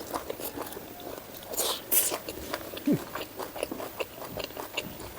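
Close-up mouth sounds of a person biting and chewing food: many short wet clicks and smacks, with a brief louder noisy sound about two seconds in.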